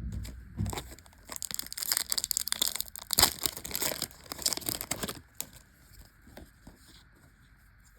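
Foil wrapper of a trading card booster pack crinkling and tearing as it is handled and opened, a dense crackle lasting about four seconds, then a few faint rustles.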